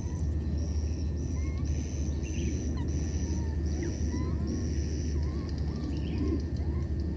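Outdoor ambience: a steady low rumble under a high-pitched chirring that pulses on and off every half second or so for about five seconds, then fades. Short faint squeaky calls are scattered through.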